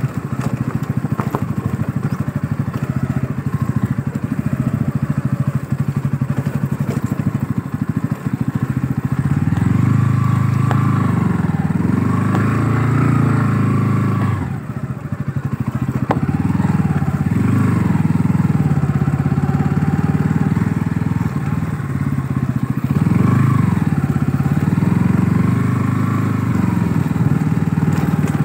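Bajaj Pulsar NS160's single-cylinder four-stroke engine running under way, the revs rising and falling repeatedly. It dips off briefly about halfway through, then picks up again.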